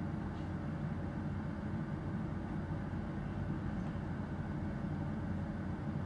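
Steady low drone of a bus heard from inside its cabin: the vehicle's engine and running noise, even throughout.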